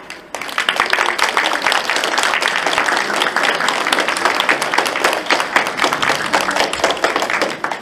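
Audience applause: many hands clapping, starting suddenly and stopping near the end.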